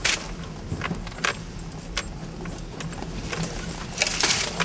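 Nissan Frontier pickup heard from inside the cab as it rolls slowly over a bumpy trail: a steady low engine hum with scattered clicks and rattles, and a louder rustling rush about four seconds in.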